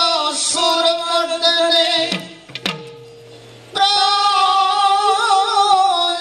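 Music accompanying a classical Manipuri dance: a voice sings a melodic line that breaks off about two seconds in. In the gap come two drum strokes with a falling pitch, and the singing resumes a little past halfway.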